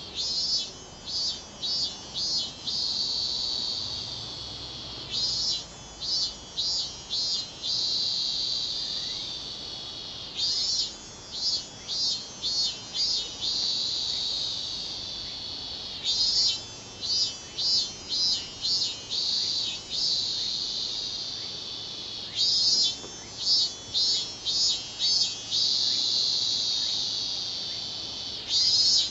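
Robust cicada (minmin-zemi) singing in repeated phrases: each is a run of about five pulsing notes followed by a long, slowly fading drone, recurring every five to six seconds.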